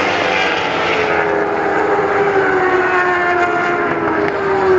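World Superbike racing motorcycles running at speed on the circuit, their high-revving engine note falling slowly in pitch; the harsher upper part of the sound drops away about a second in.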